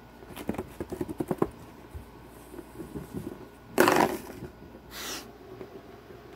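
Kitten play at a plastic cat scratcher toy with a ball track: a quick run of clicks and rattles early on, a few scattered taps, then a loud short scuffing scrape about four seconds in and a shorter one a second later.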